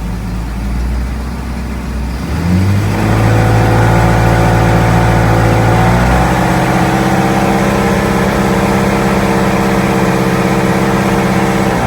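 Mercruiser 260 V8 sterndrive engine idling, then revved up about two seconds in and held at a steady higher speed until it drops back at the very end. The rev is a charging test, and the voltmeter shows little charge at raised rpm.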